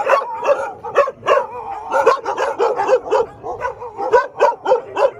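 Several dogs barking over and over, a few barks a second, overlapping one another.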